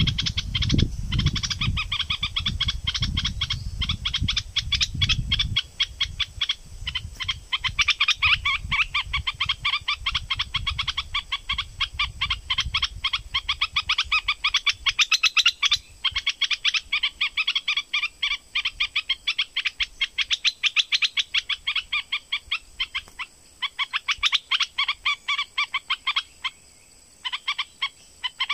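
Bulbul calls used as a decoy: long runs of quick, sharp chirping notes, many a second, with a few short pauses. A low rumble runs under the first few seconds.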